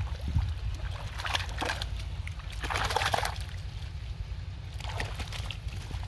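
Water sloshing, splashing and dripping as a cast net loaded with fish is dragged out of shallow pond water onto a muddy bank, in a few separate surges. A steady low rumble runs beneath.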